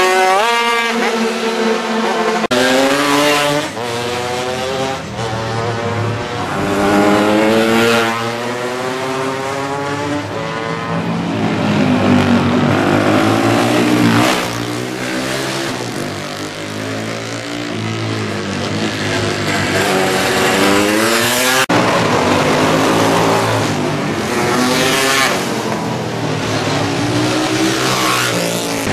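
Classic racing motorcycles going past one after another at speed, engine notes climbing and dropping repeatedly as they accelerate, shift gear and pass.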